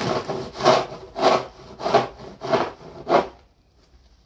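Snow crunching in five even strokes, about one every two-thirds of a second, stopping a little over three seconds in.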